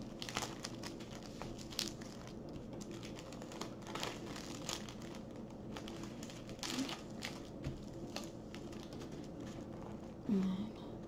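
Clear plastic packaging around a diamond painting canvas crinkling in short, irregular rustles as it is handled, over a low steady hum.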